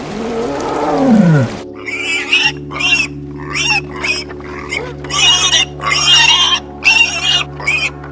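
A white tiger gives a short low growl that rises and then falls in pitch. After it comes a run of short, high-pitched squeals from a litter of piglets jostling at a nursing sow's teats, over a steady low hum.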